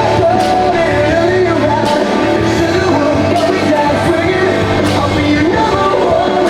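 Background music: a song with a sung vocal line over sustained backing and regular drum hits.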